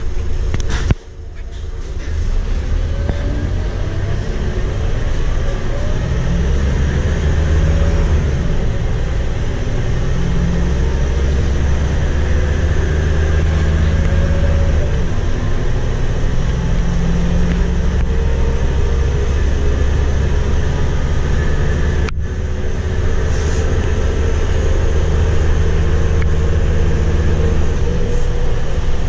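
Cabin sound of a Scania K230UB bus under way: the 8.9-litre five-cylinder Scania DC9 diesel runs steadily under road noise, its note rising over the first few seconds as the bus accelerates through its ZF six-speed automatic. One sharp click about twenty seconds in.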